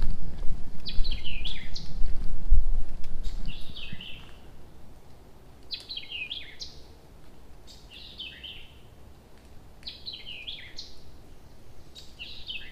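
A songbird singing the same short phrase of quick falling notes six times, about every two seconds. Under the first four seconds is a low rumble, which then stops and leaves the song over a quiet background.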